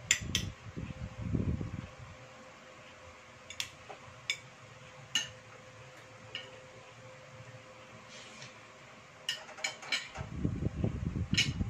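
Fork and spoon clinking and scraping on a ceramic plate while eating, as scattered sharp clicks with a quick cluster near the end. A steady low hum runs underneath, with patches of dull low rumbling at the start and near the end.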